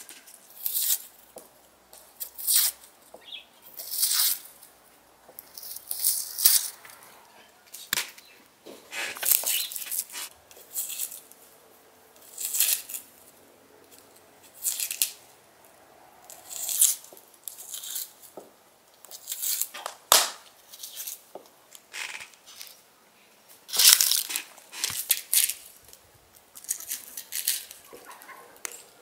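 Dry papery onion skins being peeled off by hand and with a small knife: short bursts of tearing and crackling every second or two, with one sharp click about two-thirds of the way through.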